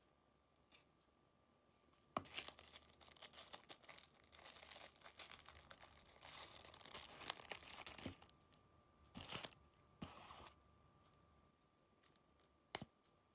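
Crinkling and tearing of a disposable chopsticks' wrapper being opened, for about six seconds, then a few shorter rustles. Near the end there is a single sharp snap as the wooden disposable chopsticks are pulled apart.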